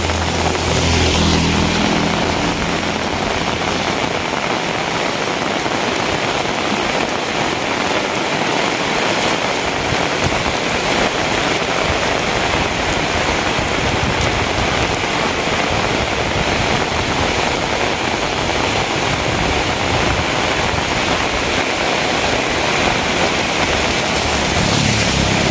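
Heavy rain falling steadily, with the low hum of a motor vehicle's engine briefly at the start and again near the end.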